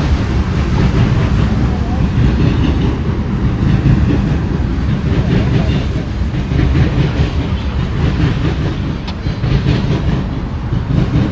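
Tank cars of a BNSF oil train rolling past, a steady loud rumble of steel wheels on rail.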